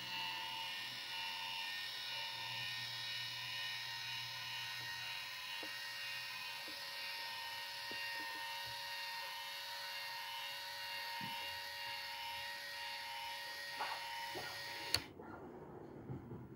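Small electric motor of a model Krampe tipper trailer's tipping drive, whining steadily as it raises the dump bed. It stops suddenly with a click near the end.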